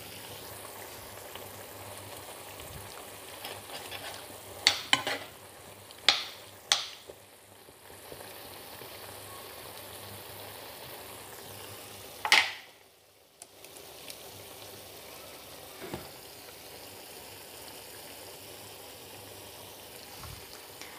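A frying pan of squash and meat in broth sizzling steadily on the hob. A few brief, louder scrapes of a utensil stirring in the pan come about five to seven seconds in and again about twelve seconds in.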